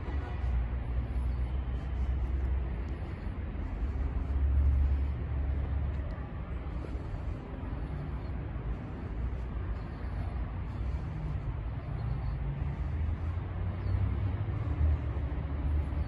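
Outdoor ambience dominated by a steady low rumble, swelling about four seconds in and again in the second half.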